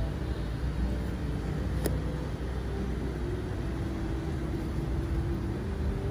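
Steady low rumbling background noise with a faint wavering hum, and one sharp click about two seconds in.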